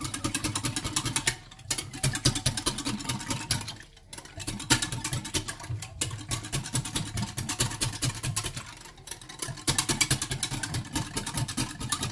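Rapid, rhythmic clicking of a utensil beating flour, water and tomato concentrate together in a bowl, the thickener for harira. It comes in runs of a few seconds with brief pauses between them.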